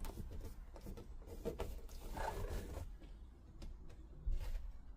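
A man breathing heavily, with one audible breath about two seconds in, over faint scrapes and clicks of handling.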